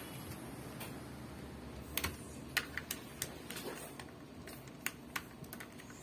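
Irregular light clicks and taps of small hard objects, a dozen or so, mostly in the second half, over a low steady background.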